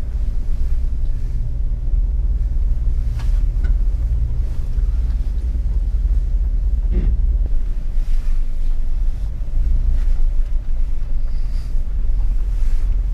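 Jeep engine running steadily at low revs while crawling along an off-road trail, a continuous low rumble with a few faint knocks from the vehicle over the rough ground.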